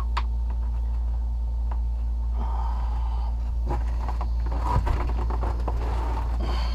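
Watermaker motor and high-pressure pump running with a steady low hum, with a few short knocks and clicks of handling on top.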